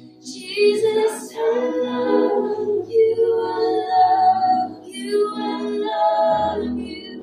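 Church congregation singing a worship song together, with women's voices prominent.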